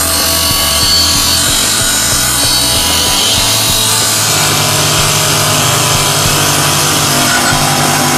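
Bench grinder's abrasive wheel running with a steel hand tool pressed against it, grinding metal steadily.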